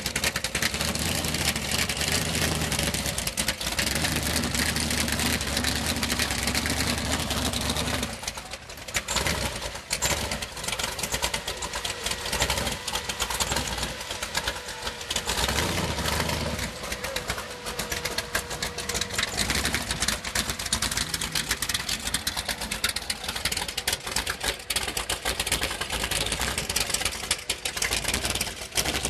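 A Boss Hoss motorcycle's 632-cubic-inch V8 running. It holds steady at first, then from about eight seconds in it rises and falls unevenly as the throttle is worked.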